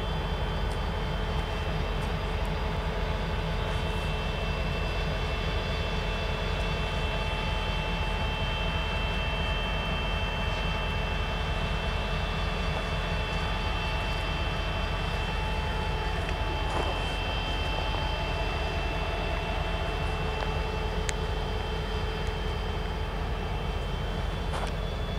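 EMD diesel locomotives, an SD40-2 leading a Soo Line SD60, idling at a standstill: a steady low engine rumble with a constant whine over it.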